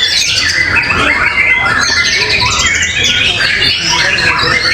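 Caged contest songbirds singing loudly together, with rapid, varied, overlapping phrases and calls and no break.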